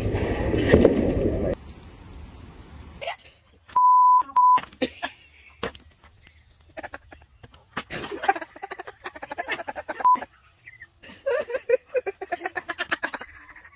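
Wind and engine noise of a motorcycle ride that cuts off about a second and a half in, then a steady electronic bleep, broken once, and later a person laughing in a quick ha-ha-ha.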